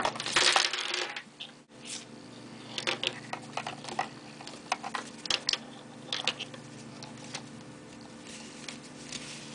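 A small pouch and packaging being handled and opened: a loud rustle in the first second, then scattered light rustles and clicks as the contents are taken out.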